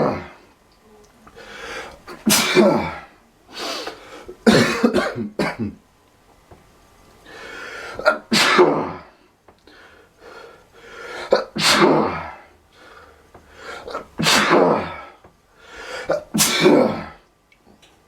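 A person in an allergy sneezing fit, sneezing over and over about every two seconds, each sneeze a drawn-in breath building to a sharp burst.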